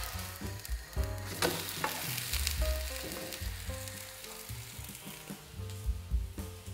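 Zucchini and egg batter pancake sizzling in hot oil in a frying pan. The sizzle flares up about a second and a half in, as the pancake is turned over onto its raw side.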